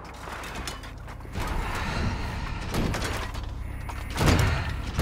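Film sound design for a scrap-metal monster: mechanical clanking and rumbling that builds up, with heavy thuds, the loudest about four seconds in.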